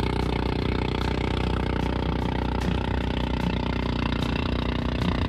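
Outrigger fishing boat's engine running steadily, an even, unchanging drone.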